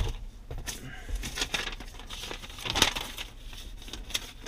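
Paper documents rustling and crinkling as they are handled, in a few short bursts about a second and a half apart, the loudest right at the start.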